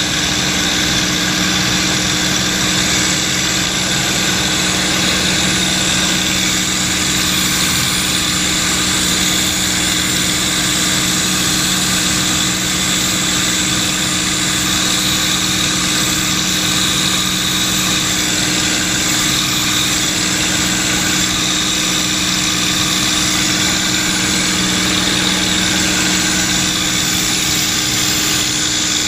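P-51D Mustang's Merlin V-12 engine running steadily in flight, heard from inside the cockpit together with propeller and airflow noise. The drone holds an even pitch and level, with no change in power.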